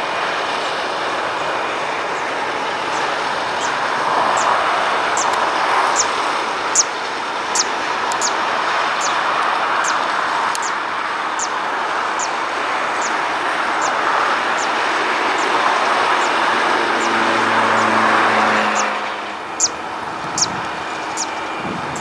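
Distant Airbus A330-200 jet engines running at low power as the airliner moves slowly on the runway: a steady rushing noise that swells and fades, dropping off near the end. A regular series of short, high chirps, about two a second, runs over it.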